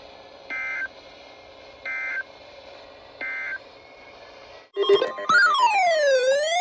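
Three short bursts of Emergency Alert System end-of-message data tone (the digital 'NNNN' code), about a second and a half apart, over faint radio hiss. This signals that the warning broadcast is over. About five seconds in, a louder electronic alert tone starts, sweeping down and up in pitch.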